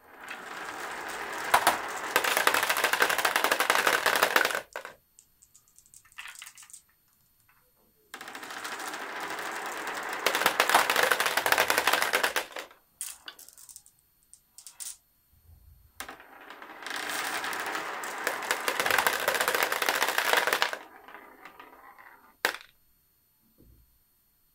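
Batches of glass marbles rolling down a wavy marble-run track and pouring into the plastic bed of a toy dump truck: a dense clicking rattle three times, each lasting about four to five seconds, with scattered single clicks between.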